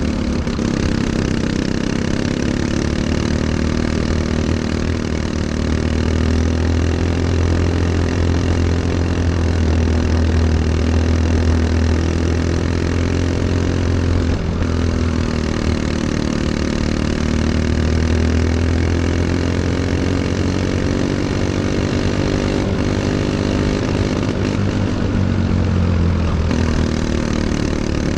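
Racing go-kart engine heard from onboard, running hard through a lap. Its pitch sinks and climbs again twice, about halfway through and near the end, as the kart slows for turns and accelerates out.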